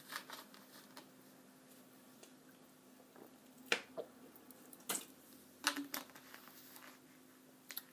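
A few short wet clicks over a faint steady hum, three of them louder, spaced about a second apart around the middle.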